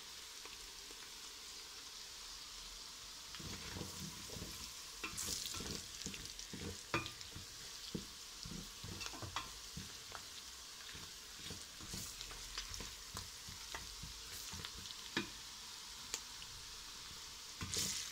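Chopped onion and freshly added garlic sizzling in olive oil in a stainless steel pot. From about three seconds in, a wooden spoon stirs them, with irregular scrapes and knocks against the pot.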